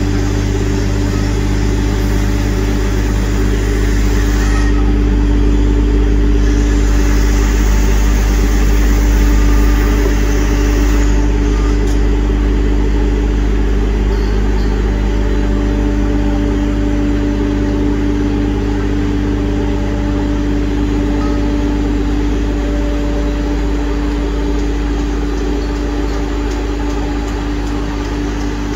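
Cog railway locomotive's engine running steadily as it moves slowly by, a deep hum with a steady tone over it. It grows a little louder about a third of the way in and fades slowly near the end.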